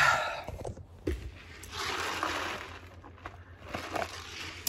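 A person drinking from a cup close to the microphone: a short breathy rush at the start, a longer hissing sip in the middle, and a few small clicks.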